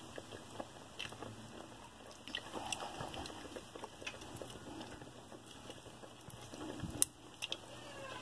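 Faint, irregular light clicks and taps of a spoon and a milk can against a pot as evaporated milk is poured and stirred into rice cooked in milk, with one slightly sharper click about seven seconds in.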